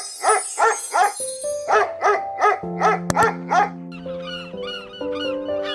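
A dog barking repeatedly, about three barks a second with a short pause about a second in, stopping a little past halfway. After the barking, a quick series of short, high chirping calls begins, over background music.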